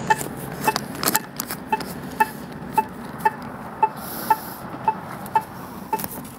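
Accessible pedestrian signal push-button ticking its locator tone, a short pitched tick about twice a second, with scattered knocks from the camera being carried.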